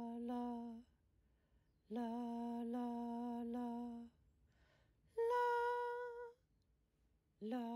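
Soft outro tune of slow, steady held notes with short silent gaps between them, hummed or sung softly. One note near the middle is about an octave higher than the others.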